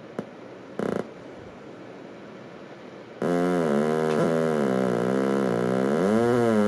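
Light-dependent-resistor-controlled avalanche oscillator: faint hiss with a short blip about a second in, then about three seconds in a loud buzzing tone switches on, its pitch sagging and wobbling as the light reaching the sensor changes.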